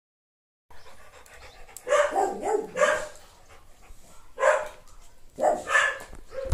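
A dog giving a series of short, pitched calls, about five in all, roughly a second apart.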